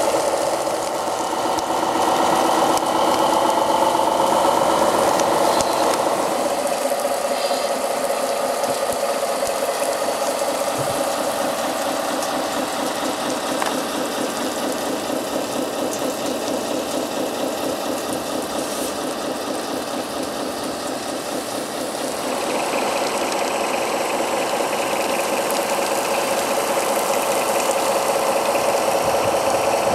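Small engine running steadily with a fast, even chatter. Its note drops about six seconds in and picks up again after about 22 seconds, as the load or throttle changes.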